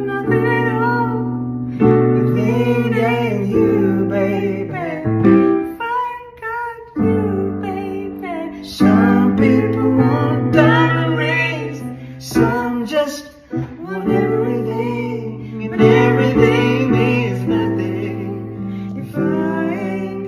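A woman singing a song to piano accompaniment, with a new chord struck about every two seconds under her voice.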